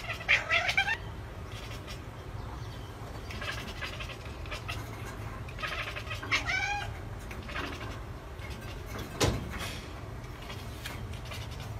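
A cat meowing in short, gliding calls: a couple near the start and another about six seconds in. There is a single sharp knock about nine seconds in.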